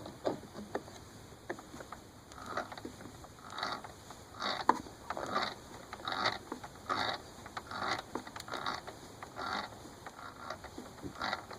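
3D-printed PETG screw pieces being threaded onto the cup by hand, a dry plastic rasp with each turn, repeating about every three-quarters of a second.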